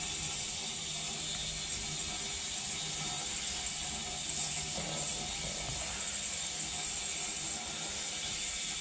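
Ultrasonic parts cleaner warming up, giving a steady background drone: an even hiss with a high whine over a low hum.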